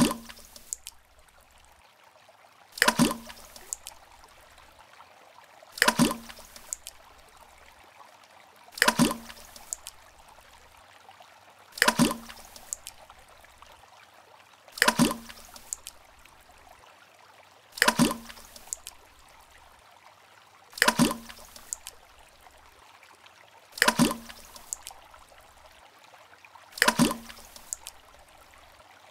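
A plop into water, repeated about every three seconds, each with a sudden start and a short splashing tail.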